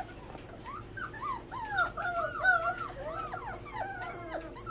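A litter of four-week-old miniature Bordoodle puppies whimpering and whining: many short, overlapping cries that rise and fall in pitch, busiest in the middle. The puppies are crying for their mother's milk.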